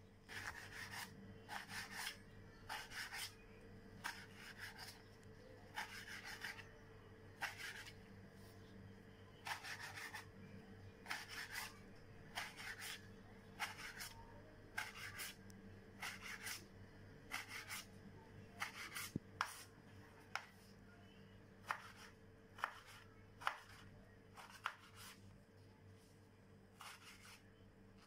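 Kitchen knife slicing tomato on a wooden cutting board: a string of short rasping strokes and blade taps on the board, about one a second, turning into sharper taps in the second half. A faint steady hum runs underneath.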